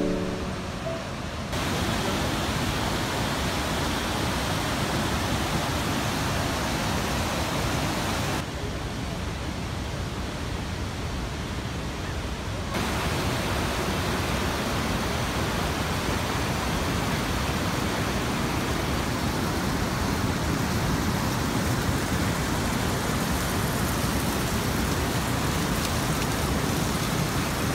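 Steady rushing of a fast, silty glacial river over boulders. The sound changes abruptly about a second and a half in, and again around eight and twelve seconds in; between those last two points it is duller, with fewer high sounds.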